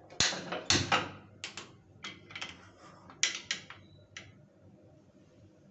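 Hand-held spark gas lighter clicking repeatedly, about a dozen sharp clicks spread over four seconds, to light a gas stove burner, with a few heavier knocks mixed in.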